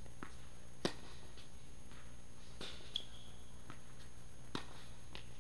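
Tennis ball struck by a racket during a rally: a few sharp pops, the loudest about a second in, then others near the middle and near the end, over a steady low hum.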